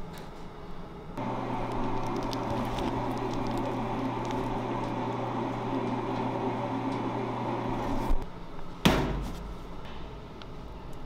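A motor runs with a steady low hum, starting abruptly about a second in and cutting off some seven seconds later. A sharp knock follows about a second after it stops.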